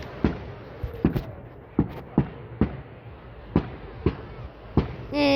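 Fireworks display going off: a rapid, irregular series of sharp bangs from exploding shells, about ten in five seconds.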